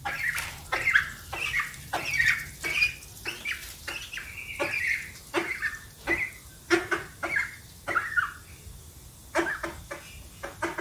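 White domestic duck giving many short, soft quacking calls while foraging, mixed with sharp clicks of its bill pecking at the stone paving.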